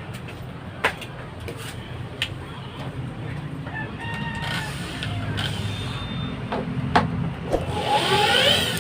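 A steady low hum with a few sharp knocks, and a short call near the end that rises and falls.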